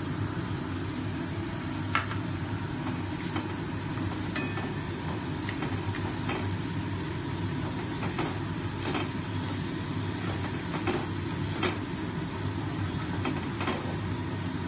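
Metal spatula stirring and scraping in a steel pan, knocking against the side with short clinks every second or so at an irregular pace, over a steady rushing hum.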